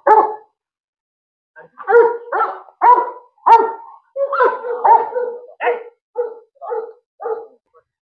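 Fila Brasileiro barking aggressively at a stranger. One bark, a pause of about a second, then a run of about a dozen barks at roughly two a second, growing fainter near the end.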